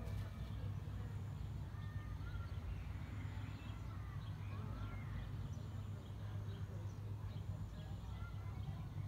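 Small birds chirping sporadically over a steady low rumble of outdoor background noise.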